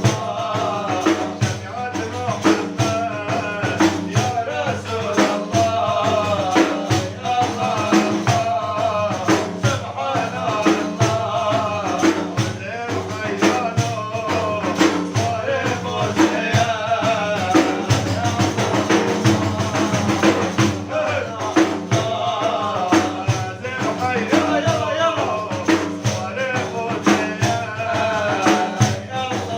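Kurdish religious praise song (madih): a man's voice singing a wavering melody over steady beating on frame drums with jingles.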